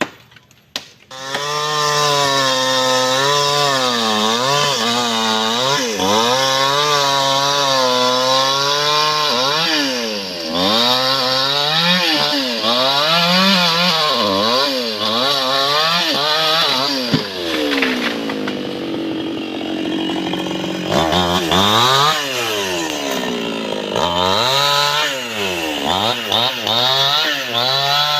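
A New West two-stroke petrol chainsaw cutting mahogany wood. The engine comes in loud about a second in, and its pitch rises and falls again and again as the throttle is worked and the chain loads up in the cut. It drops lower about two-thirds of the way through, then revs up again in quick swells near the end.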